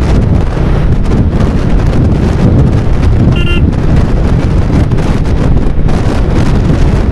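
Loud wind rumble buffeting a helmet-mounted microphone on a moving motorcycle. About three and a half seconds in, a brief high beep cuts through.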